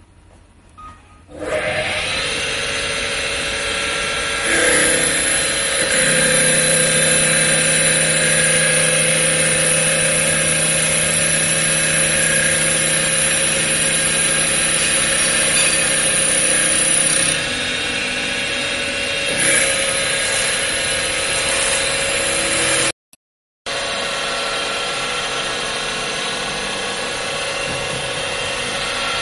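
Automatic CNC wood-turning machine running: a loud, steady mechanical whine with several held tones over a high hiss. It starts about a second and a half in and cuts out briefly near the end.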